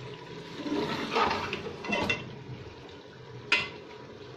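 A metal ladle stirs and scrapes bitter gourd pieces frying in the masala in an open pressure cooker pot, with a couple of scraping strokes. About three and a half seconds in comes one sharp clink of metal on metal.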